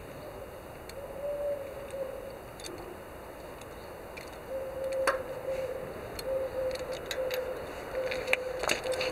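Scattered sharp metallic clicks and taps of a spark plug wrench working the old spark plug out of a Harley-Davidson Sportster Iron 883's cylinder head. The clicks come thicker in the second half, with one sharp loudest one about halfway, over a faint steady hum.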